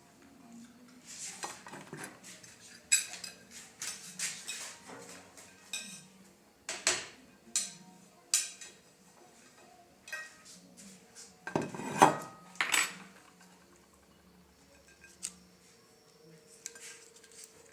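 Metal cutlery and dishes clinking and knocking together in irregular bursts, the loudest cluster about twelve seconds in, then mostly quiet near the end.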